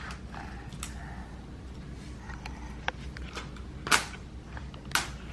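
Sharp clicks and knocks of a plastic toy egg being handled and pulled at, the loudest two about a second apart in the second half.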